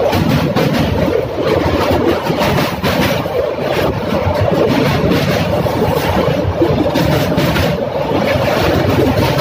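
Passenger train running at speed across a steel truss bridge, heard from on board: a loud, steady rumble and rattle of the wheels and carriages on the bridge.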